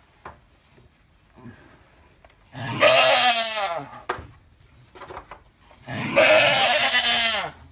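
Alpine goat doe in labour, a kid's head emerging, bleating loudly twice in long drawn-out cries, each about a second and a half and falling in pitch at the end: the calls of a doe straining to deliver.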